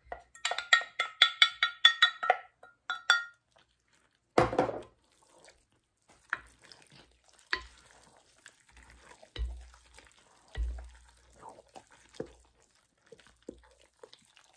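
First a quick run of ringing clinks as a wooden spoon knocks against a glass measuring cup while beaten eggs are poured and scraped out. Then a single loud clunk as the cup is set down. After that the spoon stirs egg-soaked bread pieces in a large mixing bowl: soft, wet scraping with a few dull knocks.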